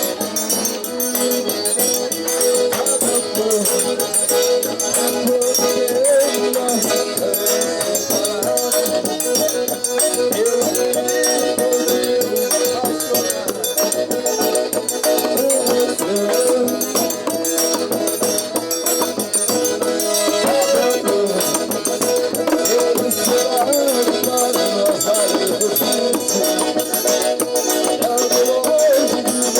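Sanfona (accordion) music played with a shaker rattling steadily along.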